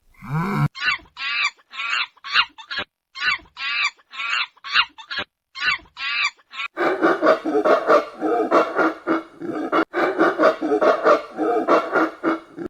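Poultry calling: a run of short, evenly spaced calls, then from about seven seconds in many overlapping calls from a flock.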